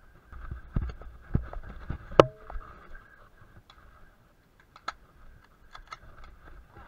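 Airsoft gunfire in a close-quarters game: irregular sharp clicks and knocks. The loudest comes about two seconds in and has a short ring after it, and scattered quieter clicks follow near the end.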